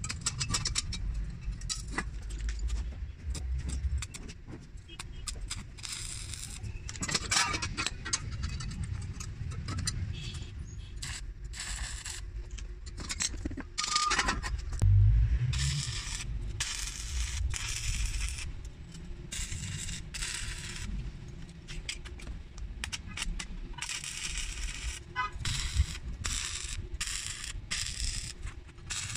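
Stick-welding arc crackling on steel plate in several stretches that start and stop, with a claw hammer striking the steel bar once with a short ring about halfway through.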